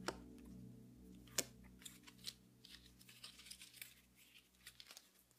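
Faint clicks and flicks of stiff photo cards being shuffled one past another in the hands, sharpest near the start and about a second and a half in, over the last of a song's music fading away.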